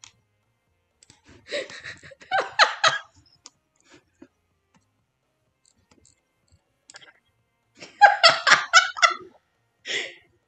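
A person laughing in two short fits of quick, repeated bursts, about a second and a half in and again about eight seconds in, with a brief laugh near the end.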